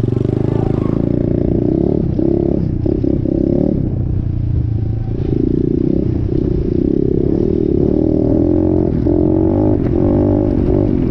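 Small off-road vehicle engine running while being ridden, its pitch rising and falling a few times with the throttle.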